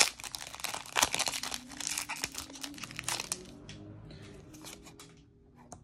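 Foil wrapper of a Pokémon card booster pack being torn open and crinkled by hand, a dense crackling for about three and a half seconds that thins to faint rustling.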